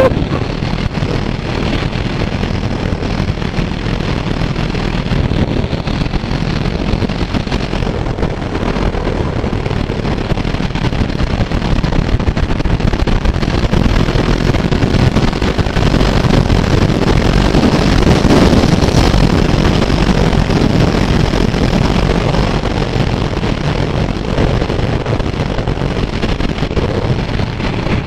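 Riding noise from a Kawasaki Z900 motorcycle: wind rushing over the rider's microphone, with the bike's inline-four engine running underneath.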